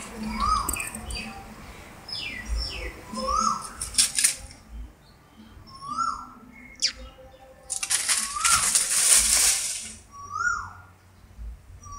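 Dry fallen leaves rustling and crackling in bursts, loudest from about eight to nine and a half seconds in. Over it, a short rising-and-falling call repeats every two to three seconds, about five times.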